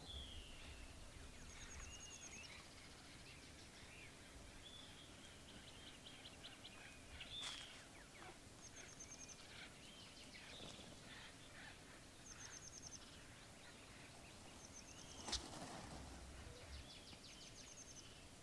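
Quiet outdoor ambience with small birds calling faintly: short, high, rapid trills repeat every couple of seconds among softer chirps. Two brief, sharper sounds stand out, about seven and fifteen seconds in.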